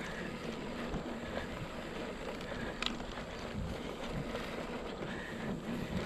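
Mountain bike rolling along a dirt trail: steady wind noise on the microphone over the rumble of the tyres, with the odd small click or rattle from the bike.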